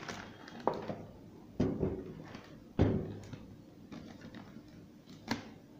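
A handful of sharp wooden knocks and thuds, with newspaper rustling, as a wooden-framed glass-cased physical balance is handled and turned upside down onto newspaper. The loudest knock comes a little under three seconds in.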